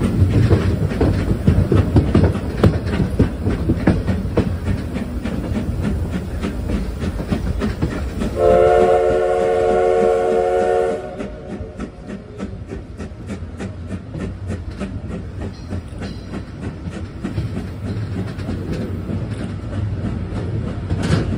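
A Tobu C11 325 steam locomotive hauling 14-series coaches, heard from an open coach window: the train runs with a rhythmic clatter of wheels over the rail joints. About eight seconds in, the locomotive's steam whistle sounds one long blast of several tones, lasting about two and a half seconds. After the blast the running noise is quieter, with a steady clickety-clack.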